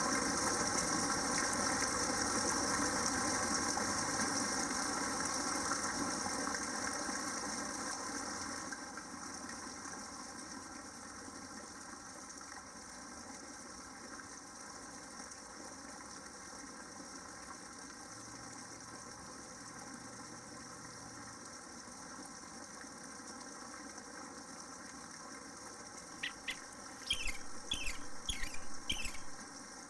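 Steady rushing background noise that drops off about eight seconds in, then a small bird chirping four or five times in quick succession near the end.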